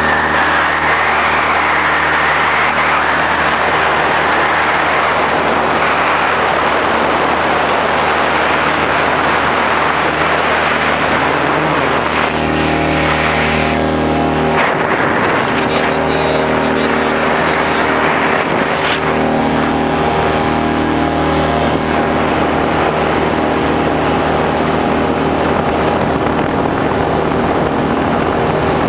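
A motor running steadily with a loud, even rushing noise and a constant hum. The hum shifts slightly about halfway through.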